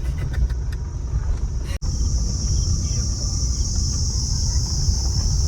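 A car driving along: steady low engine and road rumble, with a steady high-pitched hiss over it. The sound breaks off for an instant just under two seconds in, and the hiss is louder after that.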